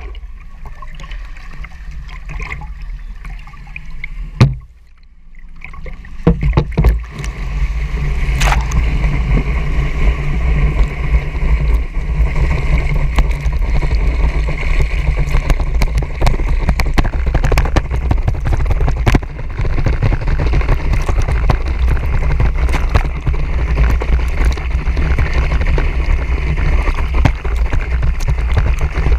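Rushing water spray and wind buffeting a camera carried in a water-ski pyramid under tow, over a steady low rumble. A sharp knock comes about four and a half seconds in, and a second or so later the rush grows much louder and stays so.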